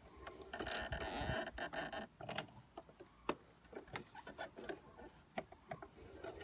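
Singer Heavy Duty sewing machine turned by a hand-crank wheel while stitching a leather edge: a short rasping run near the start, then irregular mechanical clicks and knocks from the needle and mechanism.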